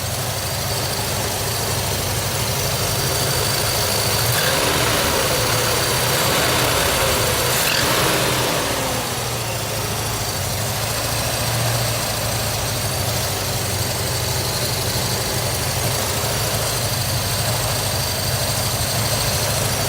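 Chevy 350 small-block V8 idling steadily.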